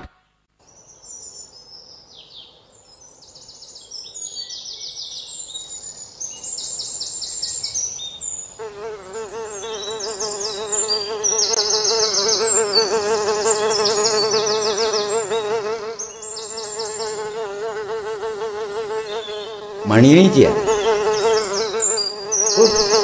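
Insect soundscape: high, rapidly pulsed cricket-like chirping throughout. From about 9 s in a buzzing insect joins, its pitch wavering, and about 20 s in it swoops louder with sliding rises and falls in pitch.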